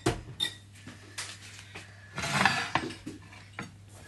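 Kitchenware being handled on a counter: a few sharp clinks and knocks, one ringing briefly, and a louder rough scraping rustle about two seconds in.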